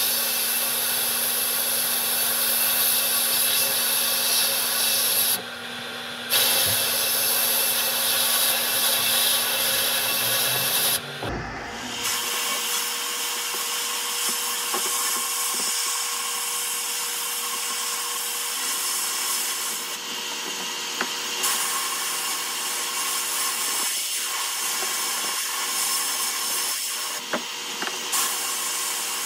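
Sandblasting in an abrasive blast cabinet: a steady high hiss of blast media blown from the gun nozzle onto small rusty metal toy truck parts. The hiss briefly drops out twice, once about a third of the way in and again shortly before the middle.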